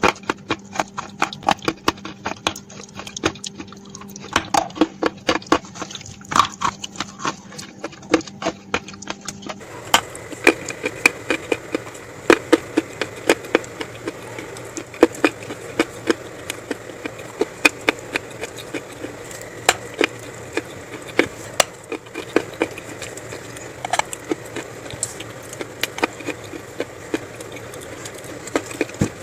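Close-miked crunching and chewing of dry edible clay: many sharp, irregular crunches and crackles as chunks are bitten and chewed. About ten seconds in the background changes as another eating clip begins, and the crunching goes on.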